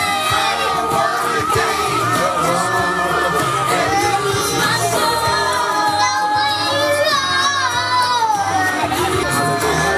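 Christian pop song playing, with sung vocals over continuous backing music.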